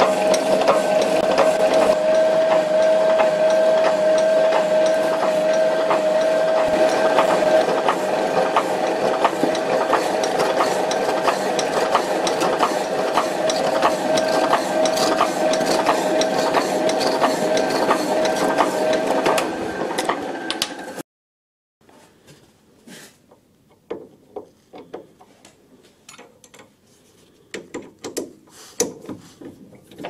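Power hacksaw cutting through a block of aluminium under coolant: a steady machine hum with a held tone and regular clicks from the blade's strokes, which stops abruptly about two-thirds of the way in. After that, quieter scattered knocks and clatter of metal parts being handled.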